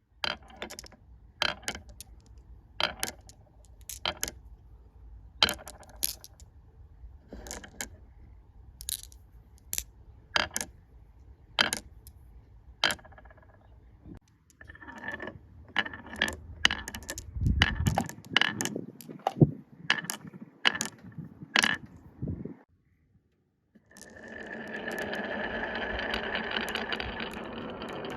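Glass marbles running through a wooden marble run: sharp clicks about once a second as they drop onto the wooden pieces, then a quicker run of clicks over a low rolling rumble. Near the end comes a steady whirring rattle lasting a few seconds, as of marbles circling.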